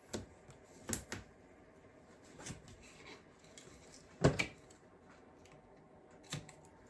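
A handful of short, scattered knocks and clicks of craft materials being handled on a tabletop while double-sided tape is applied, the loudest about four seconds in.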